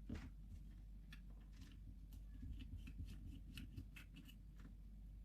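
Faint, scattered light clicks and ticks of a small screwdriver and tiny screws against a compact camera's body during disassembly, over a low steady hum.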